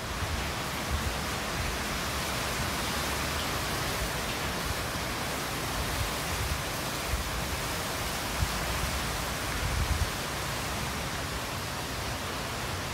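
Hurricane wind and rain: a steady rushing noise, with gusts buffeting the microphone in low rumbles now and then.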